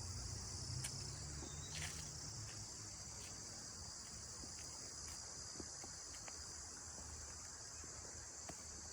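Steady, high-pitched chorus of insects such as crickets, droning without a break, with a few faint clicks, the clearest about two seconds in.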